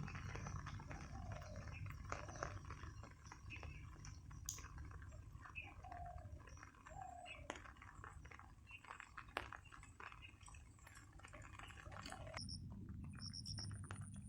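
Faint rain ambience: scattered drips ticking over a low steady rumble, with a few short descending animal calls.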